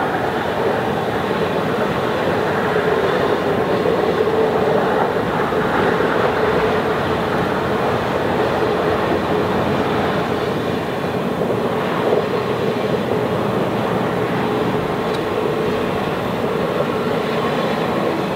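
Passenger coaches of a steam-hauled excursion train rolling past on an up-grade curve: a steady rumble of wheels on rail with a steady hum running through it.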